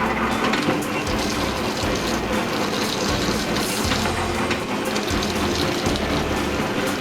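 Motorized wire-stripping machine running with a steady mechanical rattle of gears, and a low rumble that comes and goes as insulated copper wire feeds through.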